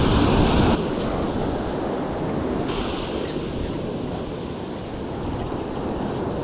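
Small waves breaking and washing up a sandy beach, with wind buffeting the microphone. A heavier wind rumble drops away suddenly under a second in, and a wave's wash swells briefly around three seconds in.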